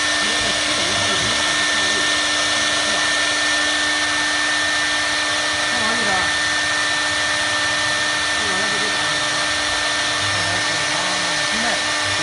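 CNC router running: a steady motor whine over rushing noise, with a constant high tone.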